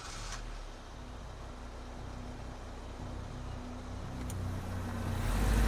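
Car engine running as the car drives off, growing steadily louder.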